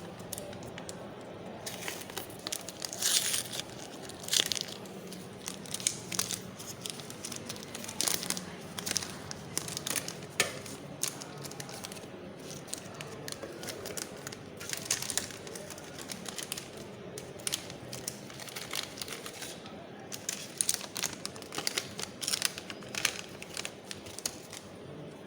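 Plastic packaging of a server RAM module crinkling and crackling in irregular bursts as it is handled and opened.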